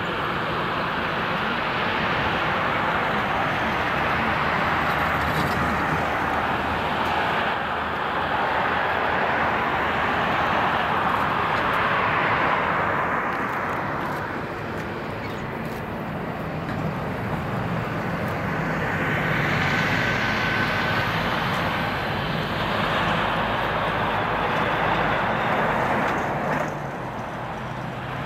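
Boeing 787-9 jet engines running at low thrust as the airliner taxis, a steady rushing noise that swells and eases, with a faint high whine in the middle.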